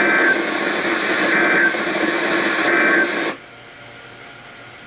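Emergency Alert System SAME data bursts: three short buzzy bursts about a second and a half apart over a noisy radio hiss, in the short form of the end-of-message (EOM) code that closes an alert. The hiss cuts off about three seconds in, leaving a much quieter background.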